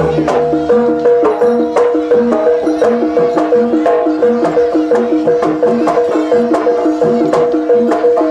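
Javanese jaranan dance accompaniment music played by a traditional percussion ensemble: quick drum strokes and rapidly repeated short tuned notes over a held high tone.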